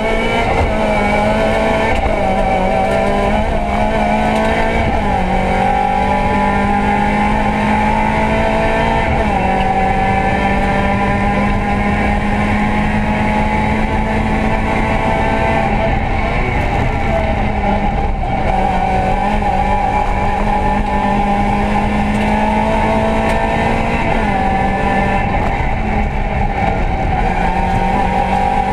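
Toyota Yaris rally car's engine heard from inside the cabin, running hard under load: its pitch climbs through each gear and drops at every upshift, several times over.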